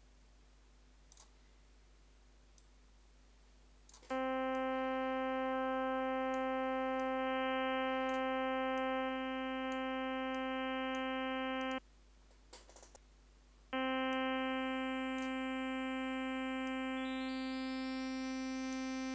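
Harmor software synthesizer sounding a single sustained note, around middle C, with a steady stack of overtones. It starts about four seconds in and stops suddenly about eight seconds later. A few seconds on the same note sounds again, and higher overtones come in one step at a time as its harmonic curve is drawn. Faint mouse clicks sound while no note plays.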